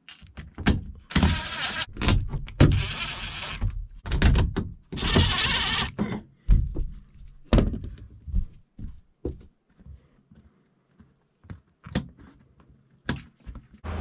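Cordless drill/driver driving screws into the air handler's sheet-metal panel in three short bursts, with knocks and clatter from the metal panel being handled between and after them.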